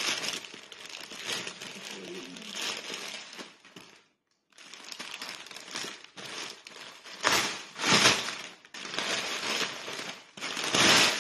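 Plastic packaging bags crinkling and rustling as they are handled, with louder rustles about seven, eight and eleven seconds in and a short break about four seconds in.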